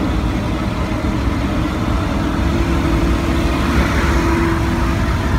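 Large truck's engine running steadily, heard from inside the cab while the truck moves slowly, with a steady low drone.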